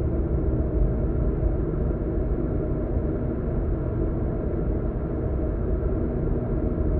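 Steady low rumble of road and engine noise inside a car cruising at a constant speed, with a faint steady hum and no sudden sounds.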